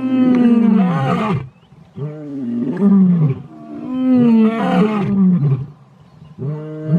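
A male lion roaring: a series of long, deep calls, each one to two seconds long, with short breaths between them.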